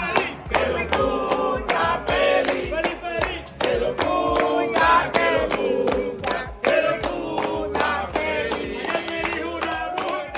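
Pop song with a steady beat and a sung vocal line, fading out at the very end.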